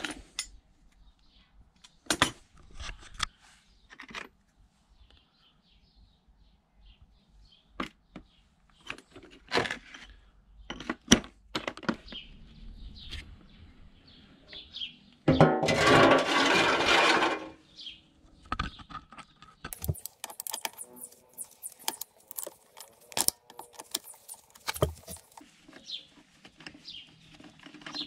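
Scattered metallic clinks and knocks of hand tools working on a scooter during an oil change. A louder rattling burst of about two seconds comes just past the middle, followed by a quick run of clicks.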